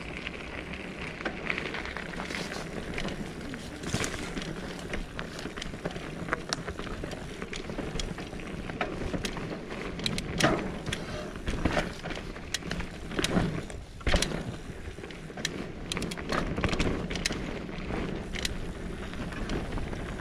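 Mountain bike riding fast down a dirt woodland singletrack: steady tyre rumble on the soil, with frequent sharp knocks and rattles from the bike as it goes over bumps and roots.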